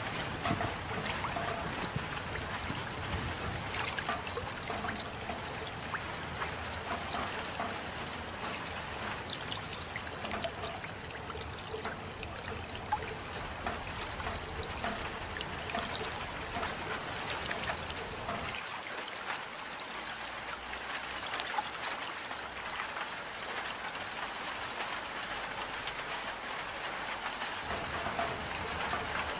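Steady rainfall, with many small drops ticking and water trickling.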